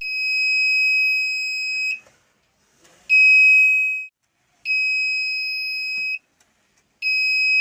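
Buzzer of a home-made IR-sensor security alarm built around a 555 timer IC, sounding a steady high-pitched tone in on-off bursts of one to two seconds with irregular short gaps, as the sensor is tripped. The tone starts four times, the last near the end.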